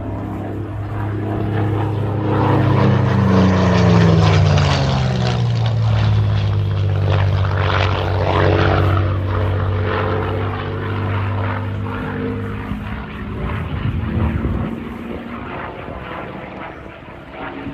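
Propeller-driven aircraft's piston engine flying past. It is loudest about four seconds in, with its pitch falling as it goes by, then it fades away.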